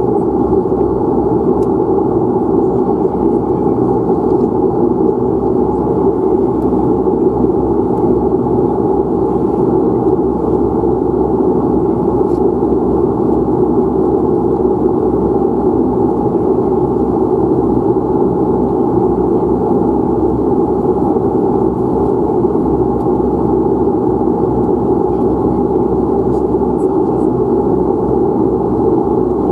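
De Havilland Canada Dash 8 Q400's Pratt & Whitney PW150A turboprop and propeller idling on the ground, heard from inside the cabin beside the engine: a steady, even drone with a low hum.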